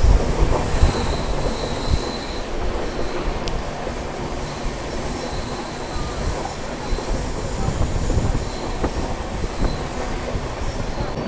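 Indian passenger train running at speed, heard from an open coach doorway: a steady rumble and clatter of wheels on rail. A thin, high wheel squeal holds for the first couple of seconds and then comes and goes.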